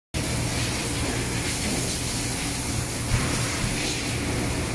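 Steady hiss of spray-painting equipment coating the inside of metal toolboxes in a spray booth, over a steady low hum.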